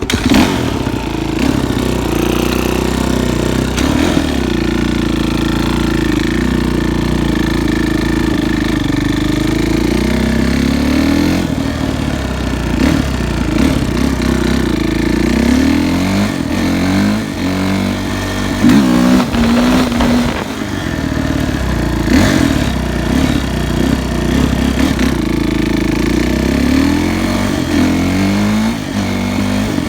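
Suzuki RM-Z450's single-cylinder four-stroke engine running loud, its pitch rising and falling again and again as the throttle is opened and eased off.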